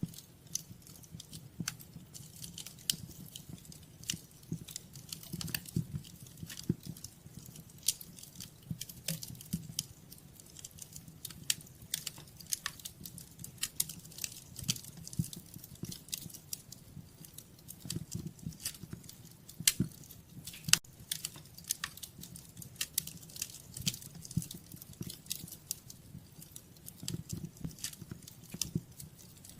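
Wood fire crackling in a fireplace: irregular sharp pops and snaps, several a second, over a steady low sound of the burning flames.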